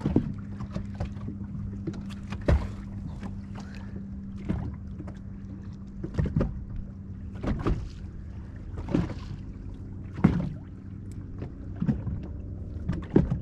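Small waves slapping against the hull of a bass boat every second or two, over the steady low hum of a bow-mounted electric trolling motor.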